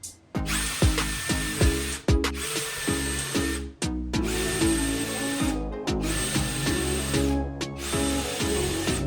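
An electric power tool motor running in four runs of one to three seconds each, a steady whine with short breaks between, over background music with a steady beat.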